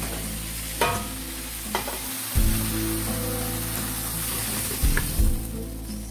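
Sautéed winter melon and ground meat sizzling as they are tipped and scraped from a hot frying pan into a stainless steel pot, with a few knocks of metal on metal.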